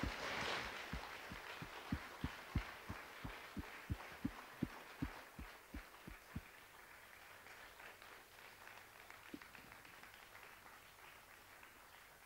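Audience applause, dying away, over a run of low thumps about three a second that stop about six seconds in.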